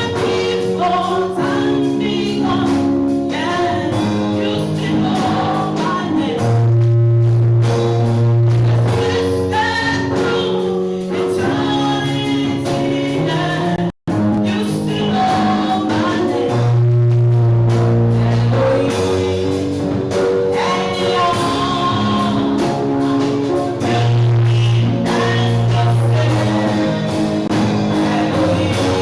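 Gospel music: voices singing together over held instrumental notes, with a brief cut-out of all sound about halfway through.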